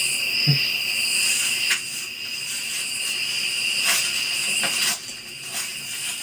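Steady chorus of crickets, a constant high trill, broken by a few short crackles like brush or twigs being stepped on.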